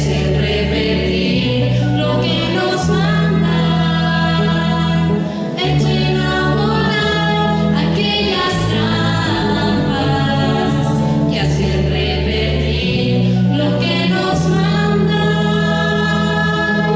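Live band music: several voices singing together over electric bass and guitars.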